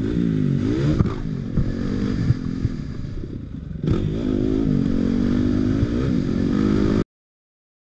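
Dirt bike engine revving, its pitch rising and falling as the throttle is worked, with knocks and rattles from the bike over the rough track. The throttle eases off about three seconds in and picks up again a moment later. The sound cuts off suddenly near the end.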